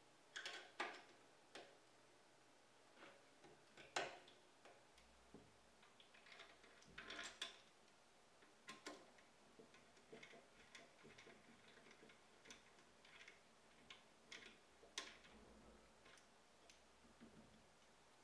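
Near silence, broken by a handful of faint, scattered clicks and taps: a screwdriver and 3D-printed bearing holders being handled and screwed onto an aluminium-extrusion frame.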